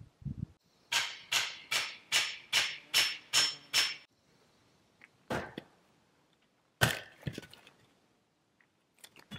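Eight sharp, quick, evenly spaced strikes, about two or three a second, each ringing briefly. Then come a few single knocks and small clicks.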